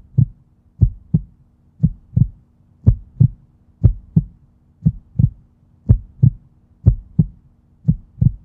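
Heartbeat-like outro sound effect: paired low thumps, about one pair a second, over a faint steady low drone.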